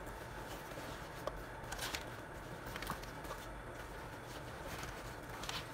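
Leather vest being handled and shifted around a sewing machine: soft rustling with a few small clicks and knocks, over a steady low hum. The sewing machine is not stitching.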